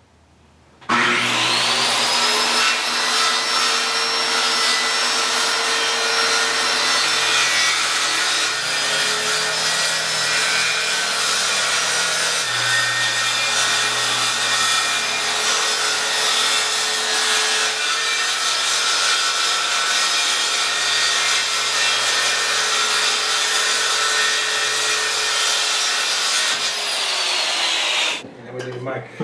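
Electric power saw cutting a long straight line through a sheet of OSB sheathing. The motor spins up about a second in, runs steadily through the cut, and winds down near the end.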